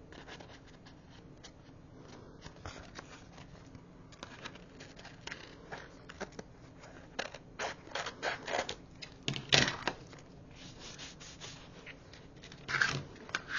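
Paper crafting sounds: a patterned paper cover and a small lined notebook being handled on a cutting mat, a series of short crisp rustles, scrapes and taps, the loudest about nine and a half seconds in.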